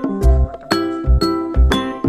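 Background music: bright keyboard notes over deep bass hits that land about every half second.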